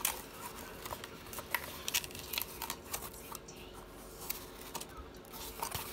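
Small corrugated cardboard mailer box being folded by hand: scattered light taps, creaks and scrapes as the flaps are bent and tucked into place.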